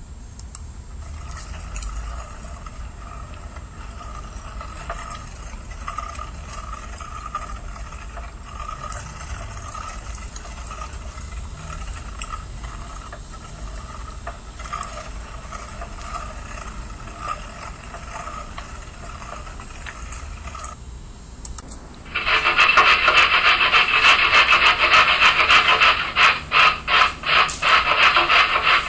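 A hand-cranked meat grinder turning as it grinds meat and stuffs sausage, a moderate sound with a faint repeating pulse. About 22 seconds in it gives way to loud, rhythmic rasping strokes of cassava root being grated.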